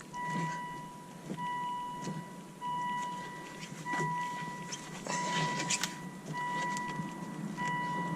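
Electronic warning chime inside a 2003 Volvo XC70 with the ignition on and the engine off: one steady beep repeating about every second and a quarter. Under it are faint rustling and scattered clicks.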